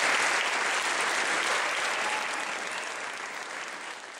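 Audience applauding, the clapping fading steadily away.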